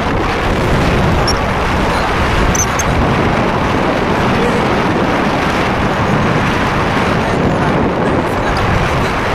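Wind buffeting the phone's microphone while on the move: a loud, steady rumbling rush that covers everything else.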